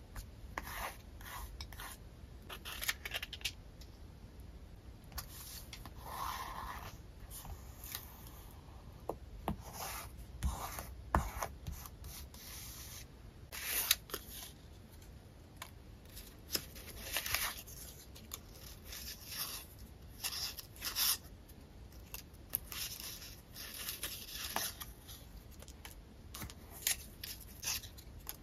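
Paper rustling and rubbing as a stack of collage sheets, tickets and die-cut paper stickers is handled and leafed through, in short irregular strokes.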